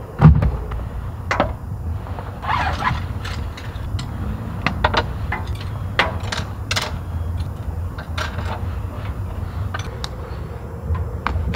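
Scattered clicks, knocks and scrapes of hard objects being handled, with a loud knock just after the start and a short rattling scrape a little under three seconds in, over a steady low rumble.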